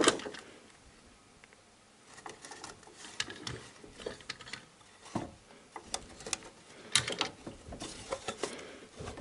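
Faint scattered clicks, taps and rustles of a hand working behind a car engine's plastic timing belt cover, with sharper clicks about five and seven seconds in.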